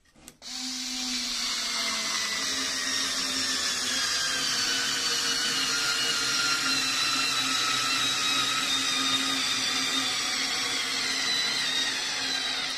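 Small cordless screwdriver motor and gearbox whining steadily as it drives a 5x50 mm screw into wood. The pitch slowly falls as the screw bites deeper and the load builds. This is the older Parkside 4-in-1 model.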